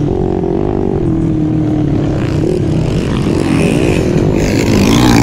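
Underbone racing motorcycle engines revving and changing pitch as the bikes accelerate around a dirt track, several engines overlapping. It gets louder near the end.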